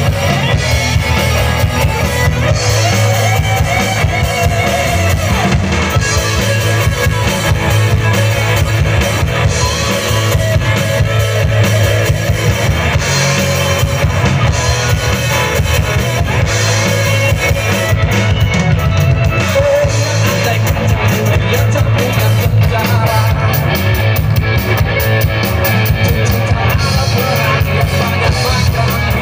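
Live rock band playing through PA speakers: electric guitars and a drum kit, with a man singing into the microphone.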